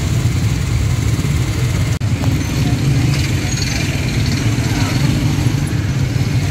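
Motorcycle engines running close by in a crowded street, a steady low drone with faint voices of people around. The sound drops out briefly about two seconds in.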